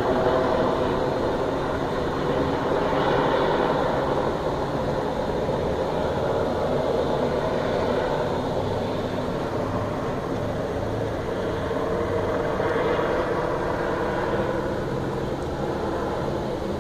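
Fire engine running steadily at high revs, driving the pump that feeds an arcing water stream onto a burning building, with slight swells in level.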